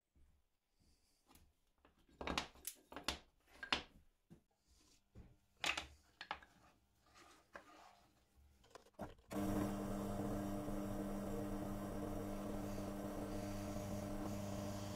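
Wooden workpieces being handled on a bench: a run of knocks, taps and rubbing sounds. About nine seconds in, a steady low hum starts abruptly and carries on.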